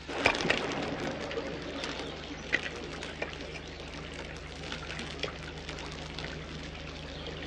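Small wood campfire crackling: an even hiss with scattered sharp pops, the loudest about a quarter second in.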